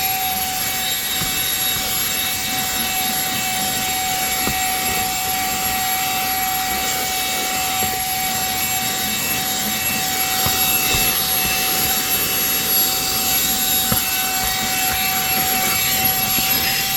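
Cordless handheld vacuum running steadily: a high motor whine over the rush of air through the nozzle, with a few faint knocks.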